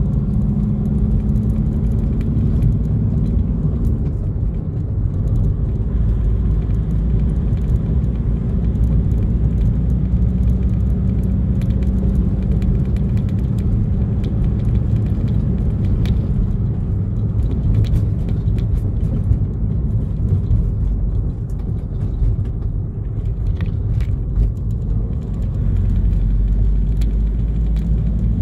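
Steady low rumble of a vehicle's engine and tyres while it is being driven. A faint engine hum holds for a few seconds at a time, then drops away and returns at a slightly different pitch.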